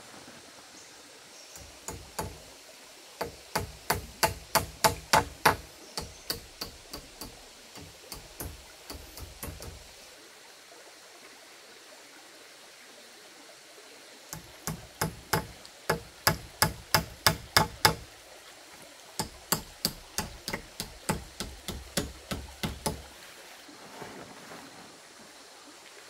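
A run of sharp knocks, about three a second, in three spells, over the steady rush of a stream.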